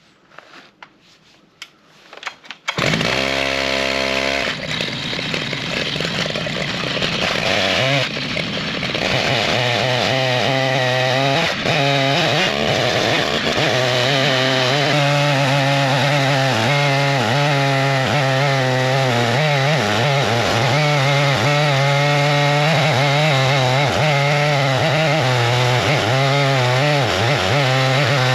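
Stihl MS881 two-stroke chainsaw on an Alaskan chainsaw mill starting up about three seconds in and idling briefly. It is then throttled up and runs steadily at high revs with a wavering pitch as it cuts lengthwise through an elm log. A few faint clicks come before it starts.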